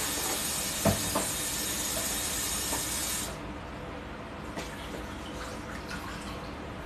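Electric food steamer hissing steadily, then cutting off suddenly about three seconds in, with a single knock about a second in.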